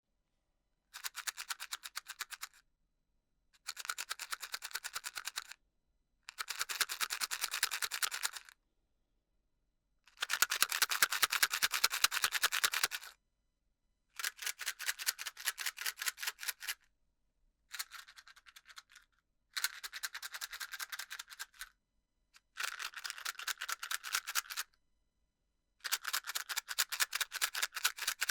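Matchbox being shaken, the matches rattling inside in rapid bursts of clicks. About nine bouts of shaking, each a second or three long, with short silent pauses between them.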